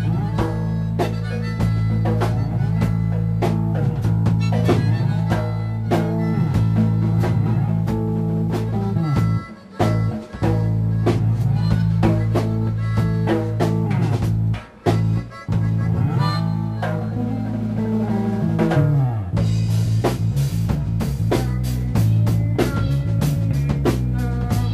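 Funk-rock band playing: bass guitar holding a low riff, drum kit, and harmonica with sliding, bent notes over the top. The band cuts out briefly twice, about ten and fifteen seconds in.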